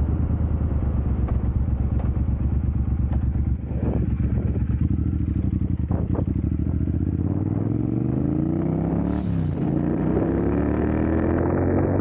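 2022 Triumph Bonneville Speedmaster's 1200 cc parallel-twin engine running through an aftermarket Dr. Jekill & Mr. Hyde exhaust: a steady, pulsing idle for about seven seconds, then the revs climb, drop briefly about nine seconds in, and climb again.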